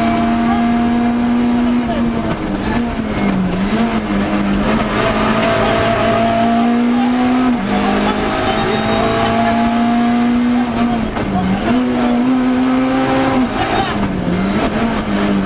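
Citroën C2 rally car's four-cylinder engine, heard loud from inside the cabin and held at high revs. Its pitch dips briefly several times between long steady pulls.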